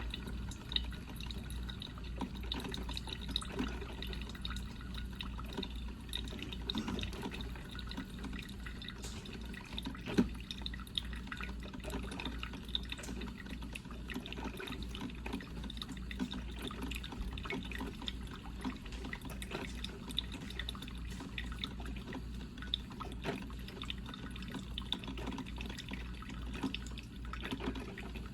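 Coffee maker brewing: water dripping and popping irregularly over a steady low hum, with one sharper pop about ten seconds in.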